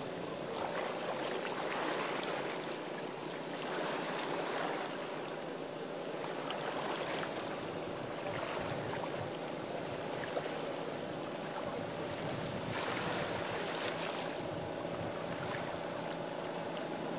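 Water washing and lapping in swells that come and go every few seconds, over a steady low hum.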